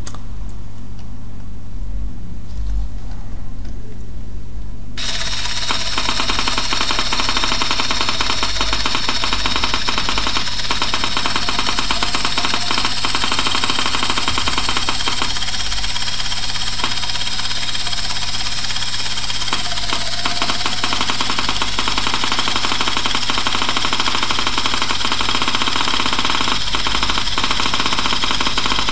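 3Shape TRIOS intraoral scanner switching on about five seconds in and running through a scan: a steady hissing buzz with a dense, rapid crackle of clicks, the clicking that signals the software is capturing scan data.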